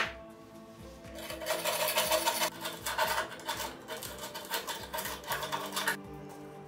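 A small flat-bladed screwdriver scraping crusted rust off a rusted metal lamp base in rapid short strokes, over background music. There is a sharp click at the start, and the scraping runs from about a second in to near the end.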